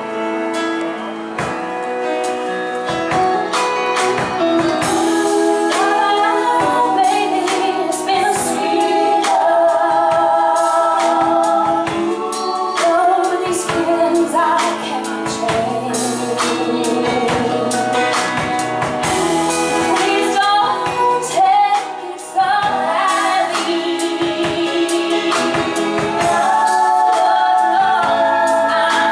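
Live band with several singers, voices holding long wavering notes over guitar and drums, with a short drop in level about two-thirds of the way through.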